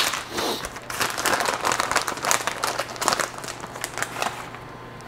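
A plastic packet of fat-free cheese crinkling and rustling as it is handled and the cheese is tipped out to be weighed, a dense crackle of small clicks that stops near the end.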